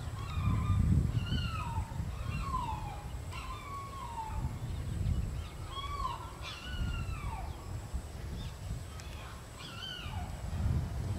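Dogs whining: a series of short, high whimpers, each falling in pitch, repeated every second or so, over a low rumbling noise.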